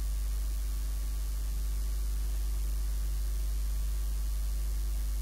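Steady low electrical mains hum with a faint even hiss, unchanging throughout.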